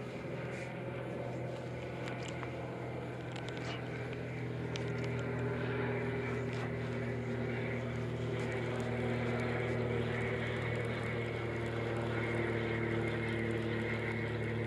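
Steady low hum of a boat motor, growing a little louder, with a few faint clicks.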